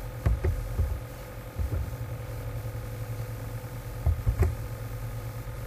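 A few scattered computer keyboard keystrokes, short sharp taps with a low thump, in small groups about a second apart and again near the end, over a steady low hum.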